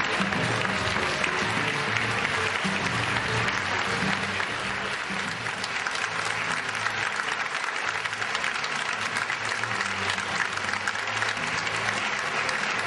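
Theatre audience applauding steadily at a curtain call, over music with a repeating low bass line.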